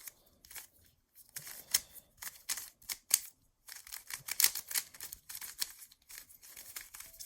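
Rapid clicking and clacking of the plastic layers of a magnetic 3x3 speedcube being turned fast during a solve, in quick irregular bursts. The cube is dry out of the box, without lube.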